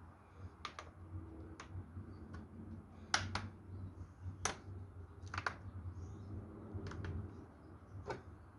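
Light plastic clicks and taps, about a dozen, several in quick pairs, as the small doors of an HO-scale plastic model locomotive shed are opened and closed by hand to test whether the glued hinges hold.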